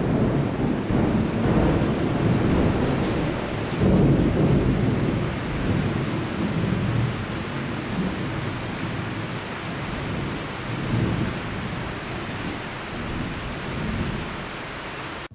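Steady heavy rain with low rolling thunder, which swells about four seconds in, then cuts off suddenly at the end.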